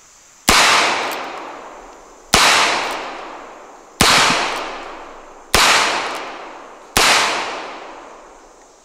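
Colt Single Action Army revolver fired five times, one shot about every second and a half, each report trailing off in a long echo.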